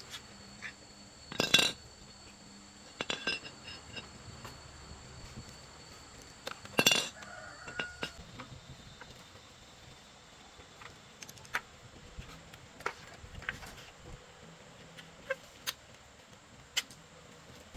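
Scattered light clinks and knocks of hard objects being handled, irregular and a few seconds apart, the two loudest about a second and a half in and about seven seconds in.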